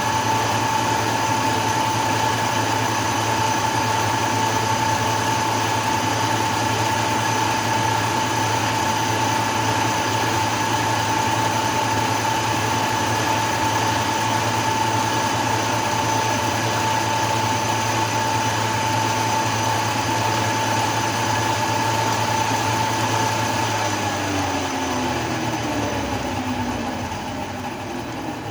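Metal lathe running steadily with a whine and a low hum. Near the end it is switched off and the whine falls in pitch as the spindle coasts down.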